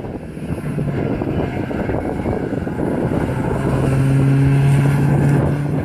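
Renault Clio race cars running past on a circuit, a steady engine note that swells and is loudest about two-thirds of the way through.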